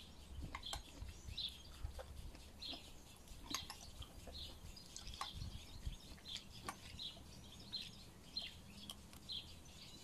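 Small birds chirping over and over in short high calls, with faint clicks from a spoon in a bowl and the sounds of someone eating.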